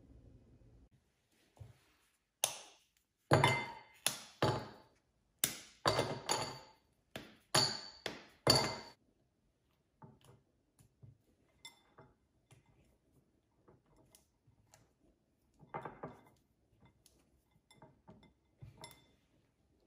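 Kitchenware clinking and knocking: about ten sharp, ringing knocks in quick succession, then scattered quieter taps.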